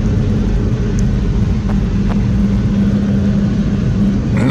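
Car driving steadily, heard from inside the cabin: a constant low engine and road rumble with a steady hum.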